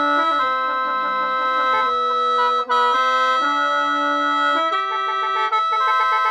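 Khaen, the Lao/Isan bamboo free-reed mouth organ, played solo in lai noi mode: a moving melody in chords over steady drone notes, with two very short dips where the player changes breath.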